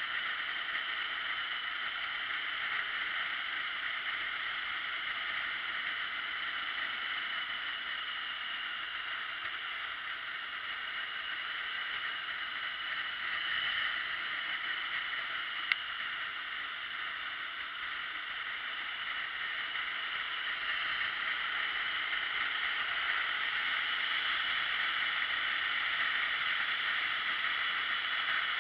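Steady rush of wind and running noise from a motorcycle riding along a road, picked up by a camera mounted on the bike. It gets a little louder in the last third, with one sharp click just past halfway.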